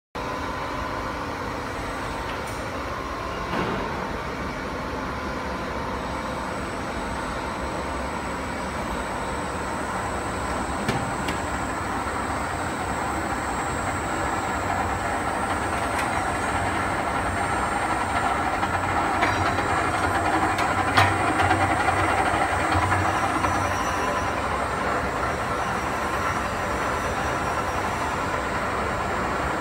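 Electric gear motor of a wax-melting mixer running steadily, turning the agitator in the stainless-steel barrel, with a thin high whine and a few light clicks.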